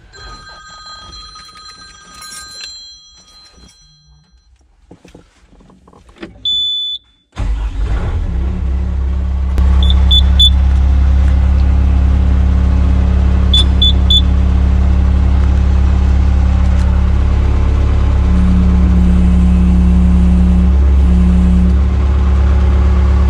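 Bobcat S185 skid-steer loader's diesel engine starting about seven seconds in, then running steadily. Two sets of three quick electronic beeps come from the instrument panel soon after it starts, and a few faint electronic tones and one short beep come before it.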